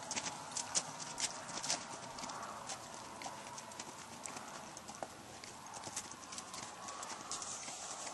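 Hoofbeats of a ridden sorrel Quarter Horse gelding on frozen, snow-covered ground: a quick run of sharp strikes in the first couple of seconds, then lighter, sparser ones as the horse slows.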